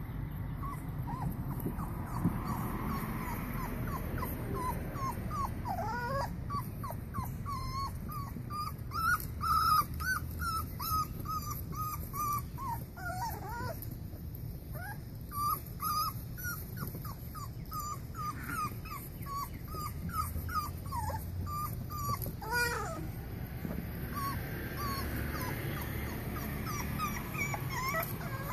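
Boxer puppies play-wrestling, giving quick strings of short, high-pitched yips and whines, with a short lull about three-quarters of the way through.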